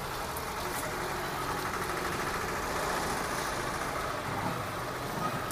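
A steady engine hum, as of a vehicle idling or traffic, with no sudden sounds.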